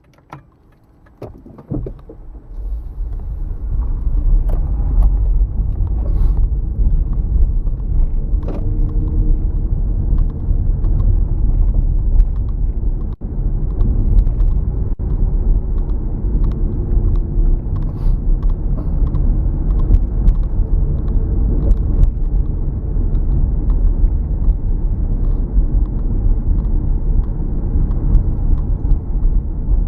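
Car driving: a steady low rumble of engine and road noise that builds up over the first few seconds, after a few clicks at the start.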